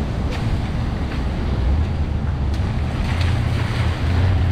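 Street traffic on wet pavement: tyres hissing on the rain-soaked road. A low engine rumble grows stronger about three and a half seconds in.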